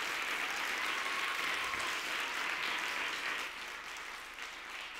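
Audience applauding, the clapping fading from about three and a half seconds in.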